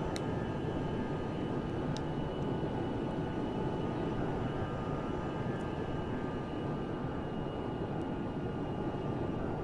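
Jet airliner's engines running: a steady rumble with a thin high whine over it that holds even throughout.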